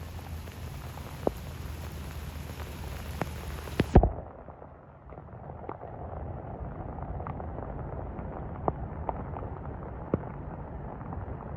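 Crackling from a phone microphone with rainwater in it: sharp pops and clicks at irregular moments over a steady low noise. About four seconds in, a loud pop comes and the sound turns muffled.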